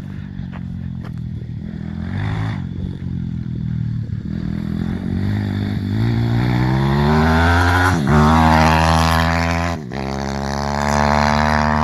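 Pit bike with a Zongshen 160cc single-cylinder four-stroke engine accelerating hard, its pitch climbing steadily. About two-thirds of the way in, and again near the end, the pitch drops sharply and climbs again, as at gear changes.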